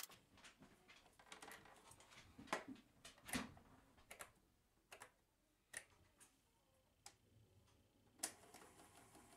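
Faint mechanical clicks of a Tascam 414 Mk2 portastudio's transport push-buttons and channel switches being operated. About eight seconds in, the rewind button clicks down and the cassette transport starts winding, with a faint steady whir.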